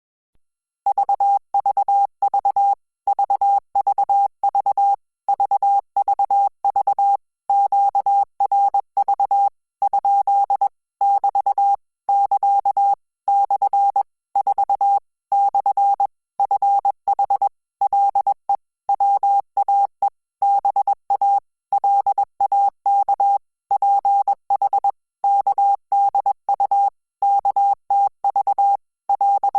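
Morse code practice tone: a single steady-pitched beep keyed on and off in dots and dashes at 20 words per minute, spelling out Korean (Hangul) text. It starts about a second in.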